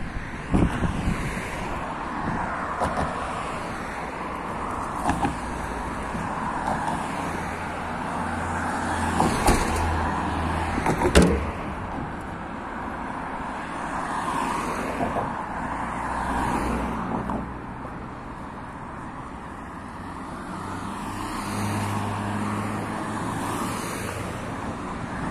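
City street traffic: cars driving past on a multi-lane road one after another, the noise swelling and fading as each goes by, with low engine hum at times. A few sharp knocks stand out, the loudest about 11 seconds in.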